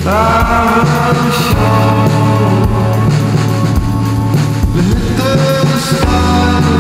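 Psychedelic indie rock song played by a band. A lead line slides up into a held note at the start and again about five seconds in, over a steady bass.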